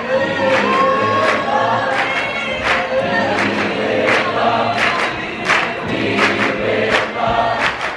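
Large mixed choir singing in parts, with crisp consonant sounds cutting through the held notes.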